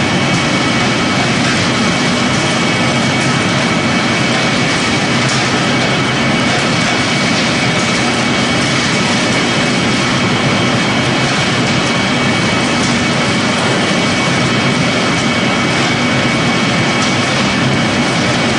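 Straw pellet-making machinery running steadily and loudly: a dense mechanical noise with a constant high whine and a low hum, no change throughout.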